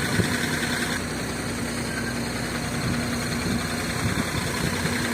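Cummins ISC inline-six diesel engine of a Blue Bird All American school bus idling steadily.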